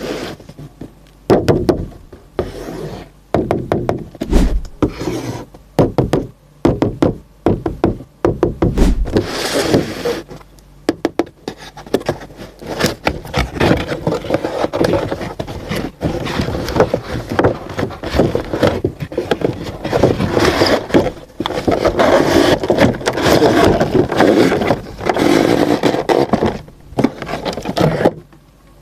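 Hands opening and handling a toy truck's box and packaging. A run of sharp knocks and taps comes first, then steady scraping, rubbing and rustling that lasts most of the second half.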